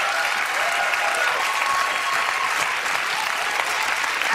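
Studio audience applauding steadily, with cheering voices over the clapping.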